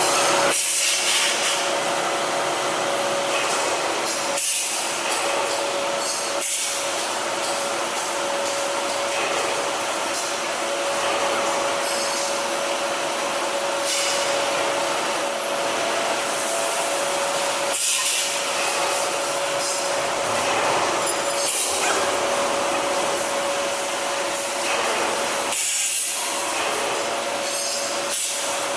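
TDF1800 tire-shredding line running continuously, a steady grinding machine noise with a constant mid-pitched hum, briefly dipping a few times.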